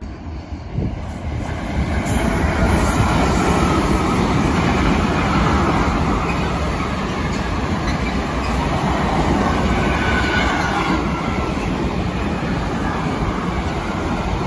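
Freight train of covered hopper wagons rolling past close by: a steady, loud rattle and rumble of wheels and wagons. The sound starts abruptly and swells over the first two seconds, with a faint high wheel squeal about ten seconds in.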